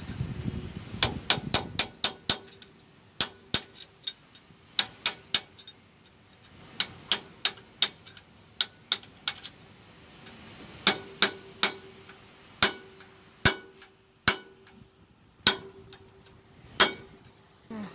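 Hand hammer striking a screwdriver held as a drift against the inner hub nut of a Lokomo 40-ton crane's rear wheel hub, driving the nut tight. Sharp metallic blows come in quick runs of three to six, then singly about a second apart in the second half, with a faint metallic ring between them.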